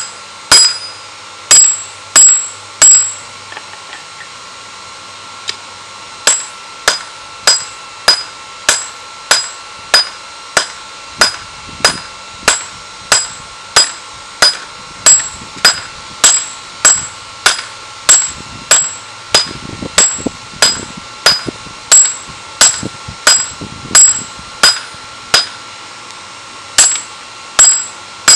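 Hand hammer striking hot steel on a round block anvil to shape a spear head's blade, each blow with a bright metallic ring. A few blows, a pause of about three seconds, then an even run of blows about one and a half a second.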